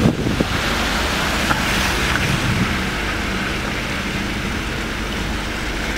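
Steady rushing wind noise on the microphone, with a vehicle engine's low hum underneath that fades a little about halfway through.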